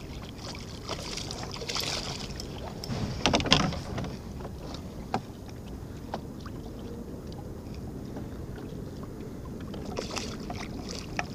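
Water lapping against a small boat's hull, with scattered light clicks and knocks. There is a brief louder noise about three seconds in.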